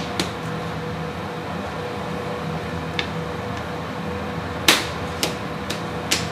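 Strips of biangbiang noodle dough slapped against the work surface while being pulled: a few sharp slaps, the loudest just before five seconds in, followed by three quicker ones. A steady hum runs underneath.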